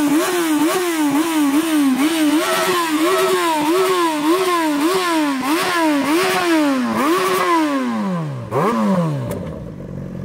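Yamaha XJ6's 600 cc inline-four engine, in a stationary bike, revved in quick rhythmic throttle blips, about two a second, the pitch jumping up and dropping back each time. Near the end comes one longer rev that falls away, a last short blip, and the engine settles to idle.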